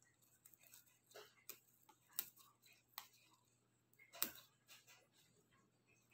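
Faint snaps and rustles of basil leaves being plucked from their stems by hand: a few sharp, irregular clicks, the loudest just past four seconds in.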